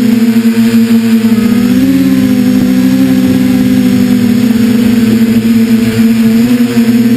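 Multirotor drone's electric motors and propellers humming steadily, heard from on board, the pitch wavering slightly about two seconds in as it moves away and climbs.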